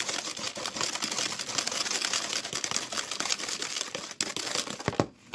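Wire hand whisk beating a creamy egg, sugar and cream cake batter in a plastic bowl: a fast, steady clatter of the wires against the bowl that stops with a sharp knock near the end.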